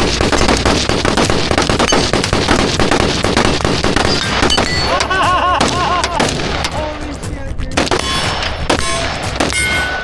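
Rapid gunfire, many shots in quick succession, over background music.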